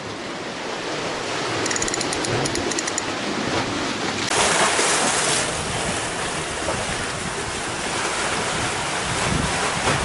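Sea waves washing and splashing against a concrete seawall, a steady surf with a louder surge about four seconds in. A short run of faint high ticks comes near two seconds.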